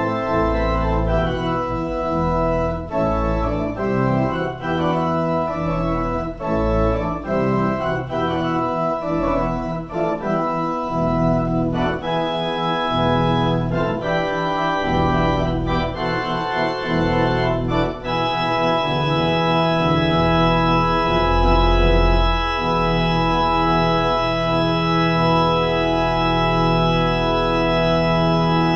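Organ playing a prelude of moving chords, settling about two-thirds of the way in on one long held chord.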